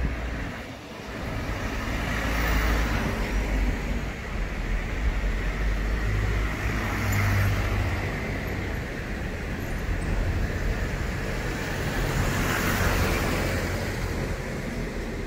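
Road traffic: cars passing on the street, a steady noisy roar that swells and fades as vehicles go by.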